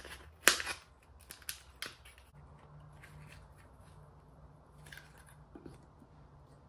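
Hands handling an album's paper and plastic packaging and disc holder: a cluster of short clicks and rustles over the first two seconds, the loudest about half a second in, then a few faint taps about five seconds in.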